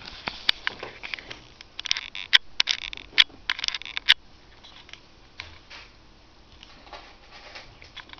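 A cat snuffling and rubbing close to the microphone: bursts of rustling with a few sharp clicks over the first four seconds, then fainter, scattered rustles.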